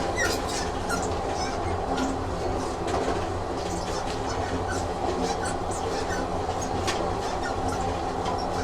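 Train sound effect: a train running on rails, a steady rumble with frequent irregular clicks from the wheels.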